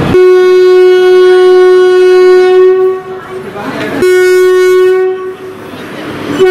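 Indian Railways WAP-4 electric locomotive's horn blowing loud, steady single-tone blasts: one of about three seconds, a shorter one a second later, and a third starting near the end. It is the departure signal as the train is flagged off with a green flag.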